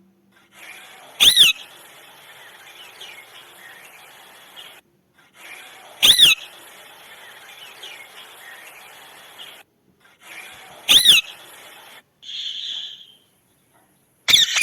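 Parrot giving a loud, shrill cry three times, about five seconds apart, over a steady background hiss, then two shorter, harsher squawks near the end.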